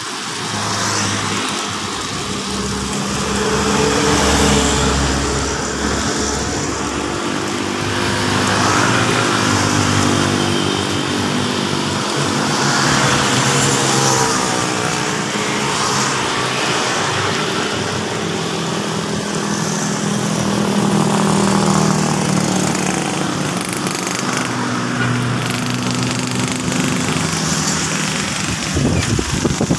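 A small engine running steadily close by, over gusty wind noise, with motorbikes and cars passing on the road.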